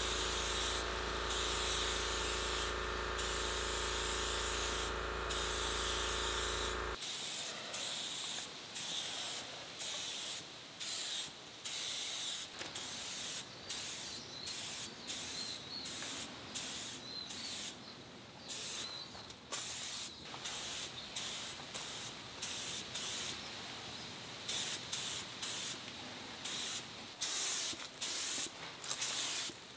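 Compressed-air paint spray gun hissing as it lays down the first coat of paint, in repeated bursts of about a second as the trigger is pulled and released. For the first seven seconds or so a steady motor hum, fitting the air compressor, runs under it and then stops.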